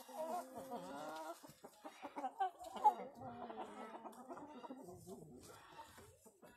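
A flock of light Brahma chickens clucking, with drawn-out wavering calls over the first second and a half and again from about two to four seconds in, then quieter scattered clucks.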